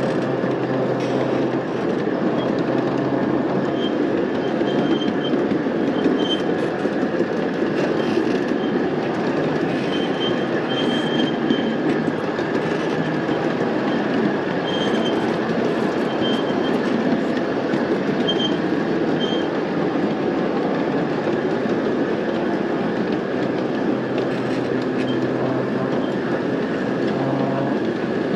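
Ridable miniature diesel-outline locomotive running along its track: a steady rumble of wheels on rail, with many brief high squeaks from the wheels and a low hum that comes and goes.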